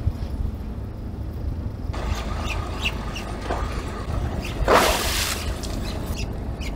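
Open-sea ambience on a small fishing boat: a steady low rumble of wind and sea, with short high chirps here and there. A brief loud rush of noise comes about five seconds in.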